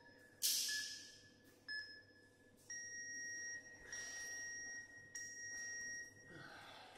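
Interval timer app on a tablet beeping the end of a Tabata round: short countdown beeps about a second apart, then three longer, slightly higher beeps. A loud thump about half a second in.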